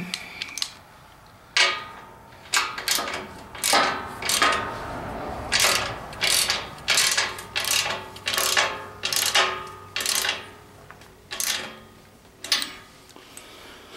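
Socket ratchet wrench tightening a bolt on a steel mounting bracket, clicking through a steady run of strokes about two a second, starting about a second and a half in.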